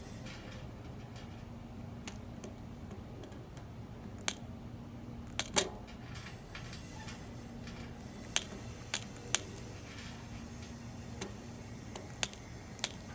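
Scattered sharp clicks and taps at irregular intervals, about eight in all, the loudest a close pair about halfway through, over a steady low hum.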